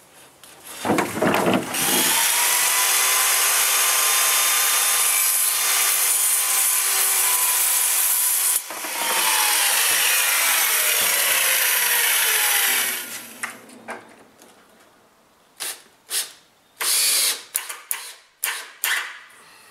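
Handheld circular saw running and cutting through a wooden 2x2 for about twelve seconds, with a brief drop about eight seconds in and the blade winding down at the end. Then a cordless drill runs in several short bursts, driving screws into the wooden frame.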